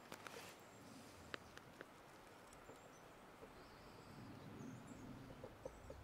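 Near silence of a still forest, with a few faint small ticks early on and, from about four seconds in, the soft scrape of an oil-paint brush stroking across the canvas.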